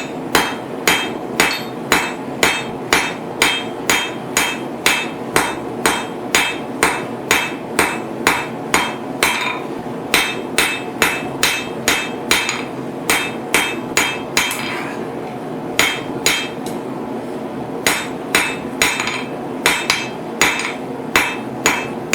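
Blacksmith's hand hammer striking a hot 10 mm steel bar on an anvil, forging its end down to a point. The blows come at a steady pace of about two a second, with a couple of brief pauses about two-thirds of the way through.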